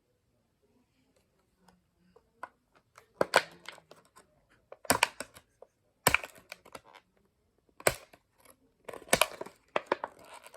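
Plastic-and-card Hot Wheels blister packaging being cracked and torn open by hand: irregular crackling and sharp snaps of plastic, with several louder clusters of snapping.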